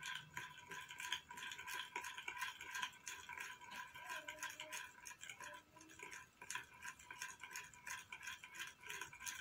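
Faint, quick, irregular light clicking and rattling, several small clicks a second, over a faint steady hum.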